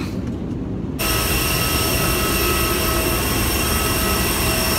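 Airliner cabin noise: a low rumble, then about a second in a sudden jump to a louder rushing sound with several steady high-pitched whines from the jet engines.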